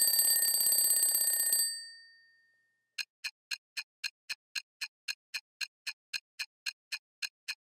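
Alarm clock bell ringing with a rapid rattle for about a second and a half, then dying away. About a second later a clock starts ticking evenly, about four ticks a second.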